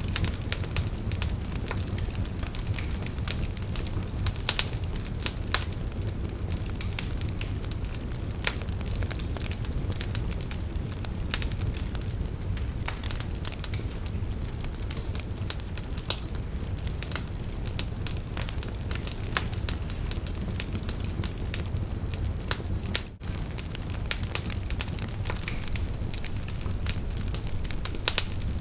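Wood bonfire burning: frequent sharp crackles and pops of the burning wood over a steady low rumble of the flames. The sound cuts out for an instant about two-thirds of the way through.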